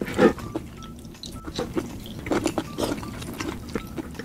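Close-miked eating sounds: fingers squelching through saucy shell-out seafood and chewing, made up of short wet clicks and smacks. The loudest comes near the start, and a cluster follows about two to three seconds in.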